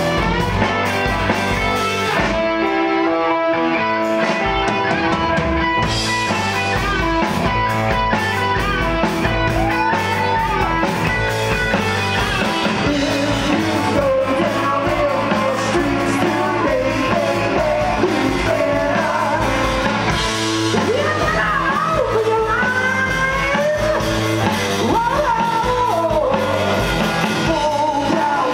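Live rock band playing: electric guitars through Marshall amplifiers over a drum kit, instrumental at first, with a singer's vocal coming in about ten seconds in.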